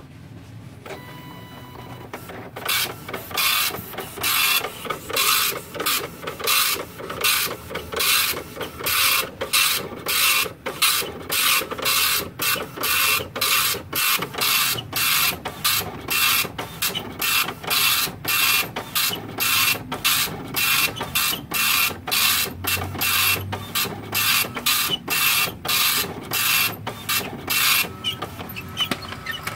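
Epson LX-300+ 9-pin dot matrix printer printing its bidirectional alignment pattern, the print head buzzing across the page in short passes about two a second, line after line. It starts about two and a half seconds in and stops shortly before the end.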